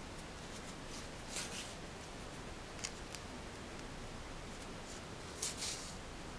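A yarn needle and thread being drawn through crocheted stitches while sewing a hole closed: a few brief, faint rustles and scratches, the loudest about a second and a half in and near the end, over a steady hiss.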